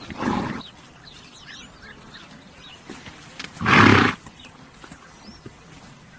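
A horse snorting twice, two short noisy blasts of breath through the nostrils, the first right at the start and the second, louder one a few seconds later.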